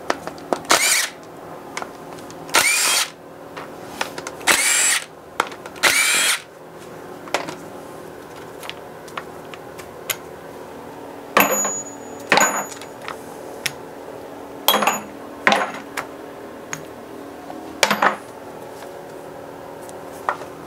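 DeWalt cordless power tool spinning out valve cover bolts in short bursts, about nine in all: four in the first six seconds, then a pause, then five more near the end. Small clicks of bolts being handled come between the bursts.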